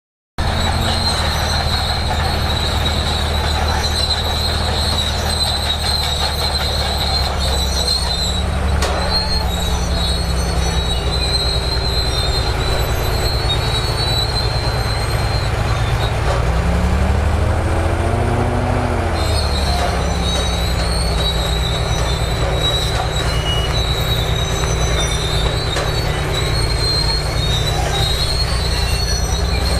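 Crawler bulldozer working: the diesel engine runs steadily under load while the steel tracks give a high, on-and-off squeal. Past the middle the squeal drops out for a few seconds as the engine revs up and back down.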